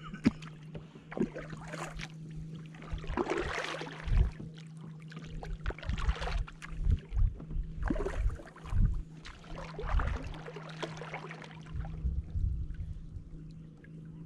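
Kayak paddle strokes through calm water: the double-bladed paddle dips and pulls with a swishing splash every second or two, with low thumps under the strokes and a steady low hum behind them.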